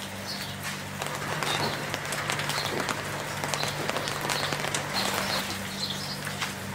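Small birds chirping now and then, short calls repeating every second or so, over a soft steady hiss and a low hum.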